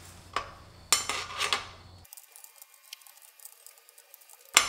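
Flat metal bottom bracket cup wrench clinking against the metal drive-side cup as it is fitted and set for tightening: several light metallic clinks in the first second and a half, and a sharper single clink near the end.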